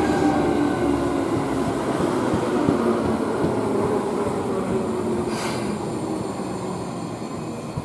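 Seibu New 2000 series ten-car electric train running past, wheels rumbling on the rails with a humming tone that slowly falls in pitch. The sound fades as the last car goes by.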